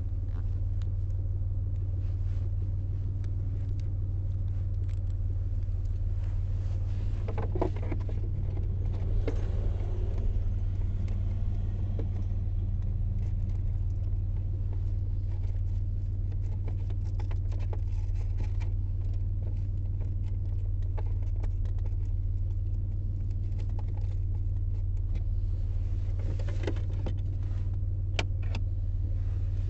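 2003 Ford Escape's engine running with a steady low hum after its misfire repair, with a few light clicks and knocks over it.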